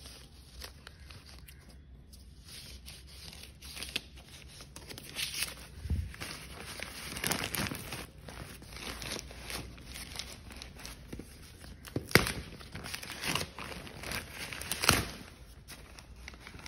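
Parcel packaging being torn open and crinkled by hand: irregular rustling and tearing, with sharp crackles about twelve and fifteen seconds in.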